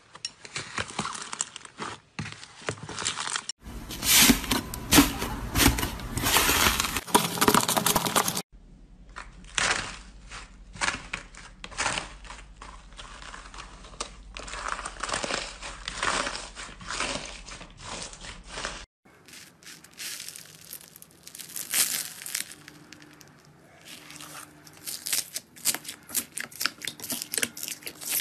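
Hands squishing, stretching and squeezing slime, making dense, irregular crackling and popping sounds, including crunchy slime mixed with foam beads. The sound changes abruptly a few times as one slime gives way to the next.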